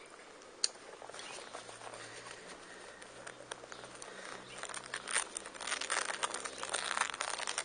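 Rustling and crackling close to the microphone, sparse at first and growing denser and louder over the last three seconds, with one sharp click under a second in.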